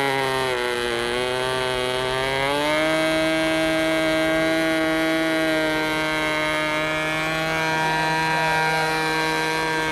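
Radio-controlled model aeroplane's small engine buzzing overhead. Its pitch dips about a second in, rises near three seconds, then holds steady.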